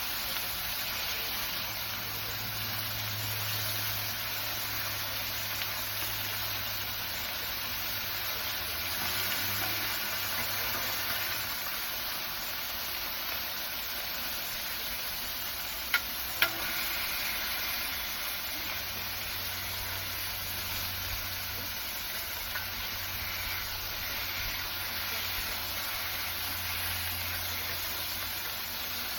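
Burgers sizzling steadily on a Blackstone flat-top griddle, with two sharp clicks about halfway through.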